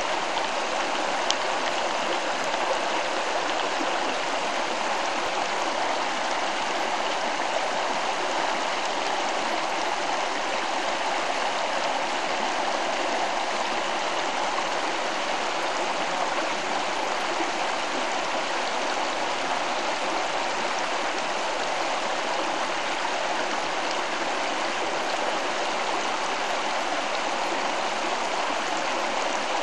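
Steady rush of flowing stream water, an even, unbroken sound with no change throughout.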